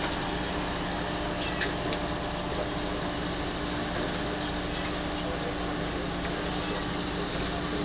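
Steady droning hum of airport apron machinery, with a brief click about one and a half seconds in.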